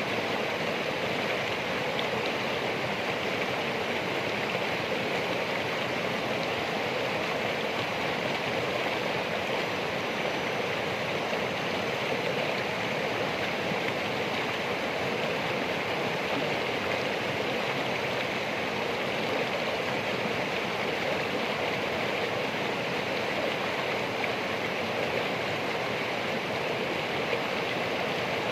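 Running water, a steady and even rush with no breaks or changes.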